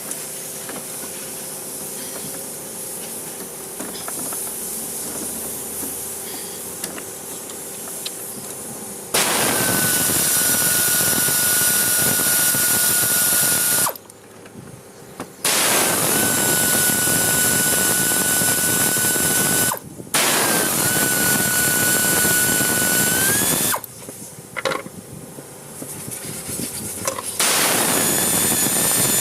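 A handheld power tool run in four bursts of about four to five seconds each, with short pauses between them. Each burst carries a steady motor whine that climbs briefly as the tool spins up. Before the first burst there is about nine seconds of quieter, steady workshop noise.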